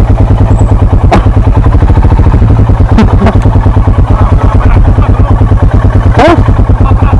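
Motorcycle engine running with a heavy, rapid low pulsing while riding over rough ground, loud and distorted, with a few short knocks.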